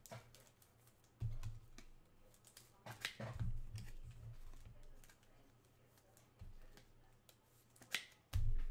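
Faint handling sounds: soft low thumps and a few sharp clicks, one about three seconds in and another near the end.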